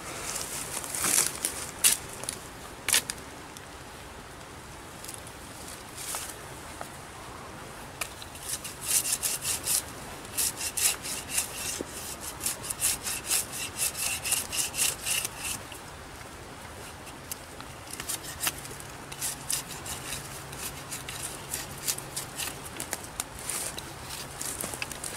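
Camillus Carnivore machete blade cutting into a thin wooden branch. A few sharp knocks come in the first seconds, then long runs of quick, rasping back-and-forth strokes, about three a second.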